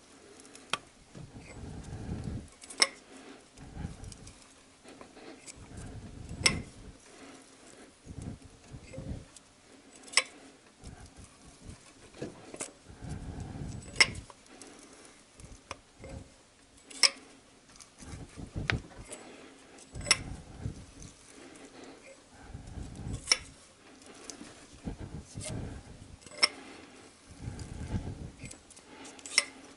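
Thread tap being turned by hand through a spark plug wrench and pipe extension, cutting an 18 mm spark plug thread into the aluminium cylinder head, with a sharp metallic click every one to three seconds as the tap bites. Between the clicks there is low rumbling from a sweater sleeve rubbing close to the microphone.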